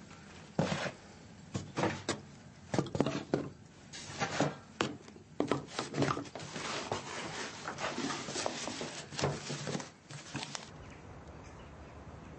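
Knocks, clinks and scraping of crockery and trays handled on a kitchen table, coming irregularly. Near the end they stop and give way to a quieter steady background hum.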